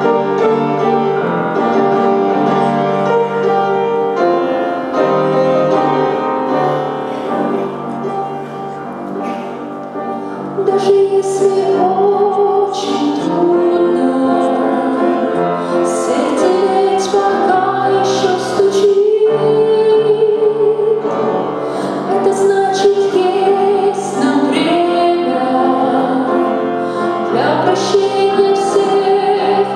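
Church choir of women's voices singing a slow hymn-like song with instrumental accompaniment. About the first ten seconds are an instrumental introduction of sustained chords; then the voices come in, louder, with vibrato.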